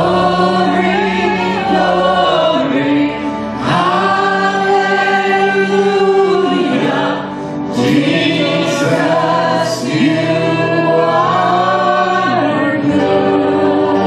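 Worship band performing: several men and women singing together into microphones, with held notes over a steady band accompaniment including guitar. The phrases swell and dip, with brief pauses between lines.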